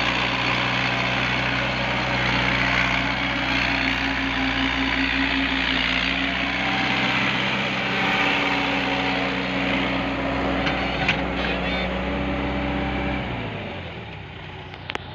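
Mini excavator's diesel engine running steadily at working speed, with a few short clicks about eleven seconds in. About thirteen seconds in, the engine note drops sharply and the machine goes quieter, as it is throttled back.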